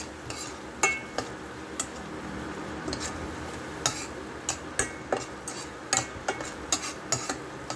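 Metal spoon stirring sauce in a stainless steel pan, clinking and scraping against the metal in irregular ticks, about one or two a second, over a steady low hiss.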